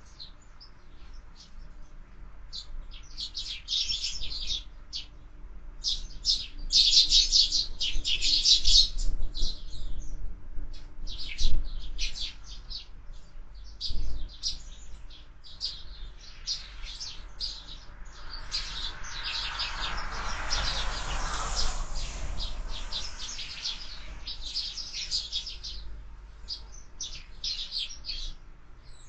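Sparrows chirping and chattering at a window bird feeder: many short, high chirps, in dense bursts of chatter early on and scattered calls later. A broad rushing noise swells and fades for a few seconds past the middle.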